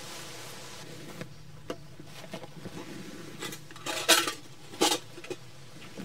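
Camping gear being unpacked from a backpack by hand: a few short rustles and clinks, the two loudest about four and five seconds in.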